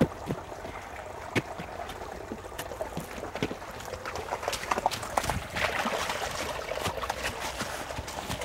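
Small woodland creek trickling, with scattered knocks and scuffs of a toddler's rubber boots on a wooden plank bridge and on wet leaf litter, busier from about halfway through.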